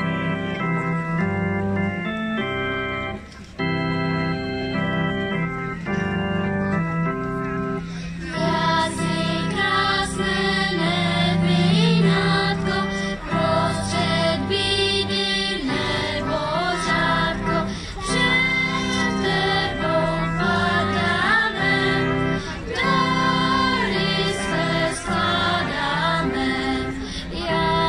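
Children's choir with amplified accompaniment: held chords play alone for about eight seconds as an introduction, then the choir comes in singing over them.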